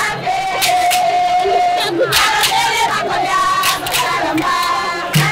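A crowd of women singing and shouting together. Long held voice notes rise over the group, broken by many sharp shouts.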